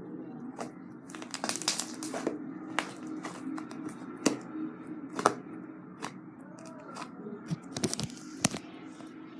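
Slime being squeezed and poked by hand, giving irregular sharp clicks and pops from trapped air: a quick cluster about two seconds in, then single pops spread through the rest.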